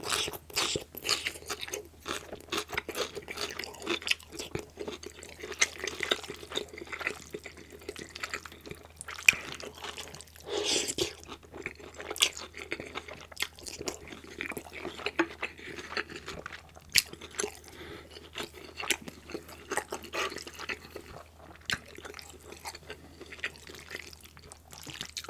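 Close-miked chewing and wet mouth sounds: green beans and gravy-coated egg noodles being chewed with sticky smacks and clicks, and a longer slurp of noodles about eleven seconds in. A steady low hum runs underneath.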